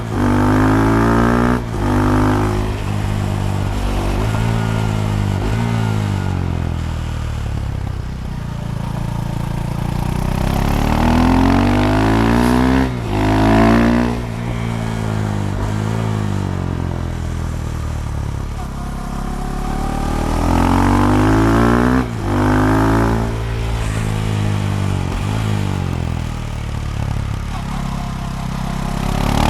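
KTM Duke 390 single-cylinder engine through a decatted slip-on Akrapovic exhaust, ridden hard. It revs up through the gears several times, with short breaks at each upshift, and between the pulls the revs fall away as the bike slows.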